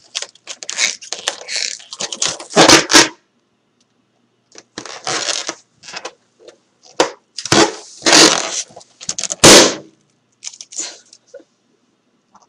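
Hands squeezing and rubbing a large clear blue balloon, its skin squeaking and crackling in short scratchy bursts, then the balloon bursting with one loud pop about three-quarters of the way through.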